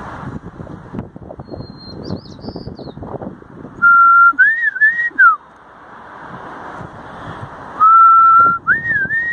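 A person whistling a short phrase twice: a held note, then a quick rising and falling figure that drops off at the end. Faint high bird chirps come about two seconds in, and traffic noise fades at the start.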